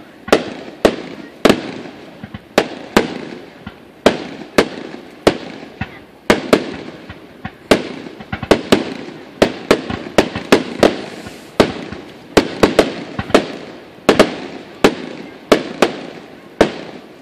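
Aerial fireworks going off in a rapid barrage: sharp bangs about two a second at uneven spacing, each trailing off in a short echo, stopping near the end.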